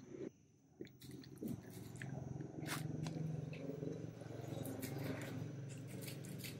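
Puppies chewing and licking pieces of ripe banana: a run of wet smacking and chewing clicks, over a low steady rumble that builds from about a second in.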